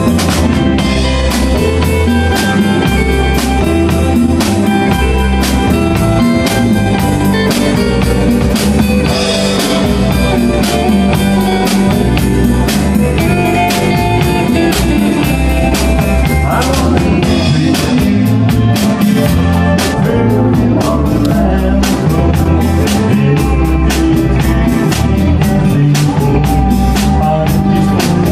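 Live band playing rock music: electric guitars over bass guitar and drum kit, with a steady beat.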